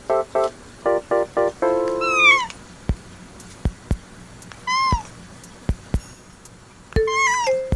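Cat meowing for a treat: three short meows with a falling pitch, a couple of seconds apart, over light plucked background music, with a few sharp clicks between them.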